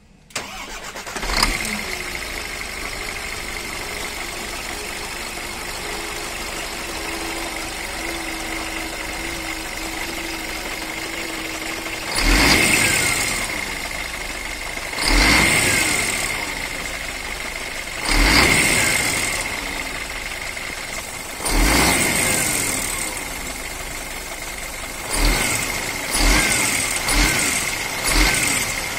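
Scania DC12 24 L01 11.7-litre inline-six diesel with HPI injection starting, then idling with a steady high whine. It is then revved in four long blips about three seconds apart and four quicker blips near the end, the revs falling back to idle after each.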